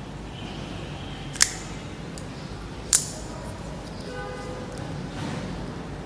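Two sharp metallic clicks about a second and a half apart, a folding knife's blade snapping open or shut and locking, each with a short ring after it.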